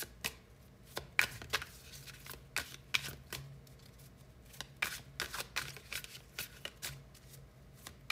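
A deck of tarot cards being shuffled by hand: irregular snaps and flicks of the cards, the loudest about a second in.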